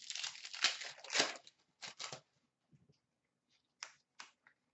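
Hockey trading cards handled by hand: about two seconds of dense rustling and sliding as the cards are flipped through, then a few light, separate flicks and taps.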